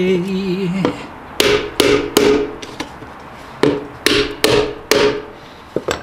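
A man's held sung note ends, then a claw hammer drives galvanised clout nails into treated softwood boards: three blows, a pause, then four more and a light tap, each blow with a short ring.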